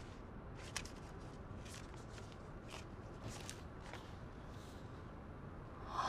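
Faint rustling of paper sheets being handled, a handful of soft, short rustles over a quiet room.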